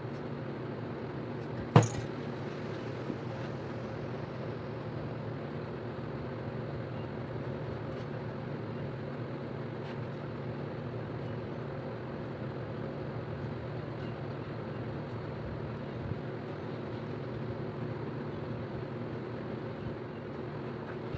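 A steady low mechanical hum, with a single sharp click about two seconds in.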